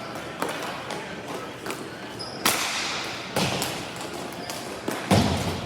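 Sharp knocks and thuds of ball hockey warm-ups: sticks striking balls and balls hitting the rink boards, about five hits, the loudest about two and a half seconds in and near the end.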